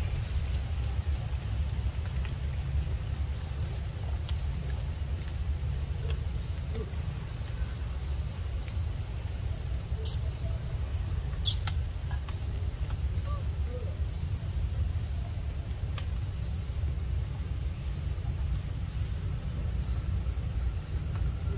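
Forest insects shrilling steadily at a high pitch, with a short rising chirp repeating about once a second, over a low steady rumble. Two sharp clicks come about ten and eleven and a half seconds in.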